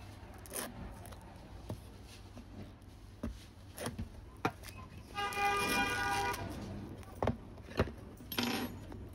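Plastic shrink-wrap on a cardboard box being slit with a thin pointed metal tool and handled: scraping, small clicks and taps. About five seconds in, a steady pitched tone lasting about a second and a half is the loudest sound.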